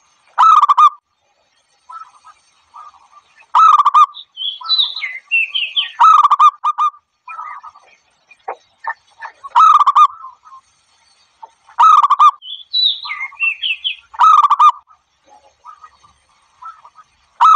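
Zebra dove calling: loud, rapidly pulsed rippling coos of about half a second each, repeated every two to three seconds, with softer notes between. Twice a higher phrase of falling notes comes in between the coos.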